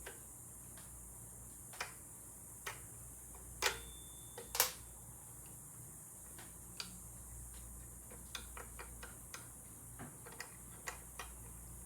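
Scattered metallic clicks and taps of a wrench and brake parts being handled on a motorcycle's front drum brake linkage. There are two louder knocks about four seconds in, and a run of light ticks later.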